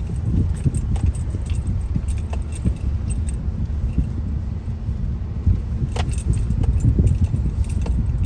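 Inside a moving car: steady low rumble of road and engine noise, with frequent small rattles and clicks from loose items in the cabin, a few sharper ones near the end.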